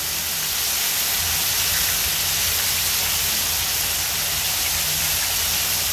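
Flour-battered chicken pieces deep-frying in a wok of hot oil: a steady sizzle.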